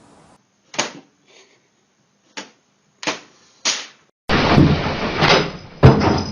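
Four short separate knocks, then a loud noisy clatter of about two seconds with one hard thump near the end.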